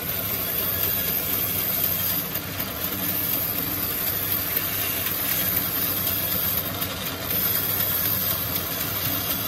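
Sawmill bandsaw running steadily as a rough timber plank is fed through it and cut lengthwise, a continuous drone with a hiss.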